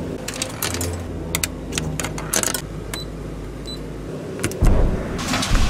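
Automatic ice-dispensing machine: a steady motor hum with clicks and two short beeps from its touchscreen panel. Near the end a low rumble starts, followed by the rushing clatter of crushed ice pouring down the flexible chute hose.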